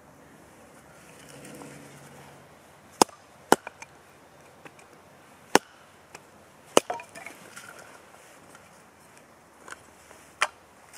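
Sharp wooden knocks of a large Sami leuku knife chopping into the end of an upright stick to split it, about five loud strikes at uneven intervals with a few lighter taps between. A brief splintering crackle follows one strike midway as the wood splits.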